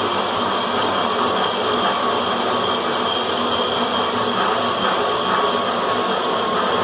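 Climax BB5000 portable line boring machine running steadily as it machines the steel ears of an excavator bucket, a constant mechanical whine with several steady tones over cutting noise.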